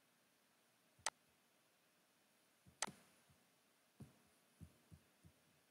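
Computer mouse clicking over near silence: two sharp clicks about a second and a half apart, then a few fainter, duller ticks near the end.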